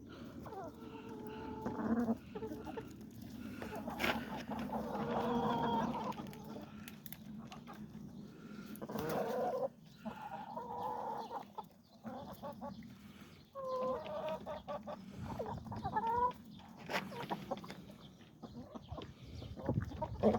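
Domestic hens clucking in bouts, with several drawn-out calls that rise and fall in pitch. Scattered sharp taps sound between the calls.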